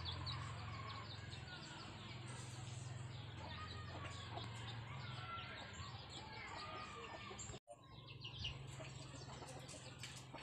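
Chickens clucking and birds chirping over a steady low hum, with a sudden brief dropout of all sound about three-quarters of the way through.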